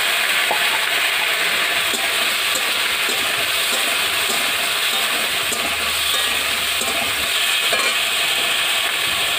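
Chopped vegetables (brinjal, pointed gourd, flat beans, potato) sizzling in hot oil in a kadai, just added to the pan. The sizzle is loud and steady, with a few light clicks.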